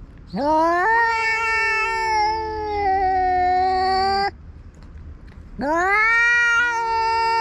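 Grey-tabby-and-white cat giving two long, drawn-out yowls, each rising sharply at the start and then sagging slowly in pitch, the second beginning after a short pause. It is a territorial warning yowl at a rival cat intruding on its ground.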